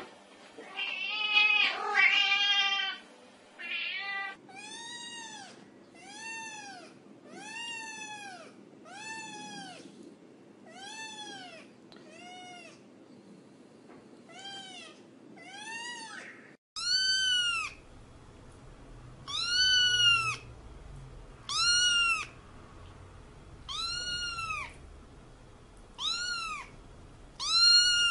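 A domestic cat meowing over and over: after a longer cry near the start come short meows that rise and fall in pitch, about one a second. About two-thirds of the way in the sound cuts. From there the meows are higher, louder and a little further apart, over a low background rumble.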